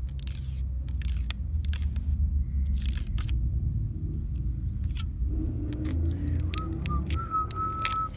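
A steady low rumble with scattered light clicks; a little past the middle, a person starts whistling a few notes that waver and step down in pitch.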